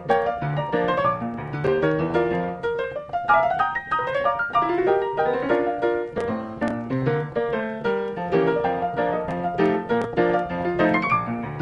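Lively solo piano music: a steady stream of quick notes, with rising runs about three to five seconds in.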